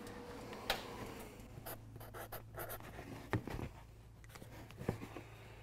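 Pen writing on a paper sheet, with faint scratching, a few small clicks and taps, and a low steady hum underneath.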